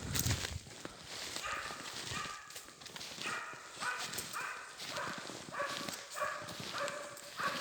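Hunting laika barking in a steady series, about two barks a second: the rhythmic bay of a laika working a moose.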